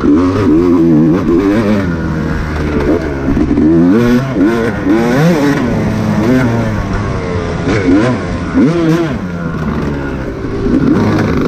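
Off-road racing dirt bike engine, loud and close, revving up and down over and over as the throttle is worked through the course. Its pitch climbs and drops every second or so.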